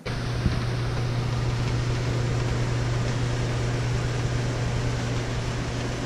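Greenhouse fan running: a steady low hum over an even rushing noise.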